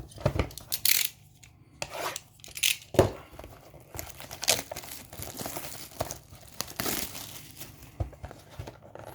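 Packaging of a Donruss basketball trading-card blaster box being torn open and crinkled by hand: irregular rips and crackles, with one sharp loud rip about three seconds in.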